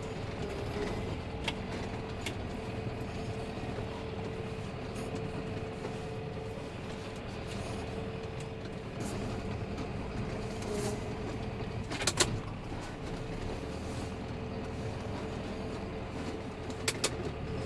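John Deere tractor's engine running steadily while it pushes a snow plough, heard from inside the cab, with a few short sharp clicks, the loudest about twelve seconds in.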